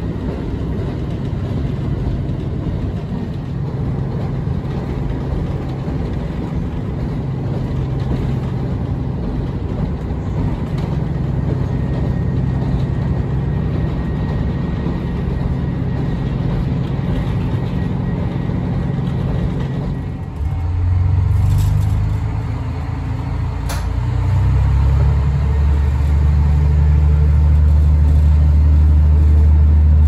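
Diesel railcar running, heard from inside the car: a steady low engine drone over track rumble. About two-thirds of the way through, the sound changes abruptly to a deeper, steady engine hum, with two sharp clicks, and grows louder near the end.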